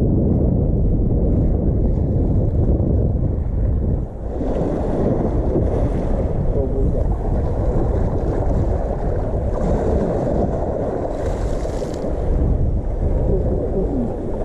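Wind buffeting the microphone: a steady, rough low rumble with a brief dip about four seconds in.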